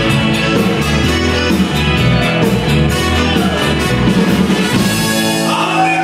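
Live Tex-Mex band playing loudly, with button accordion, electric bass, electric guitar and drum kit; the bass and drums drop out about five seconds in as the song ends.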